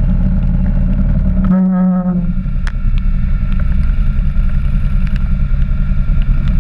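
Quad bike engine running at low speed over rough ground, a fast, dense rumble. About a second and a half in, the rumble drops away for under a second while a short, steady held tone sounds. Scattered sharp ticks come through.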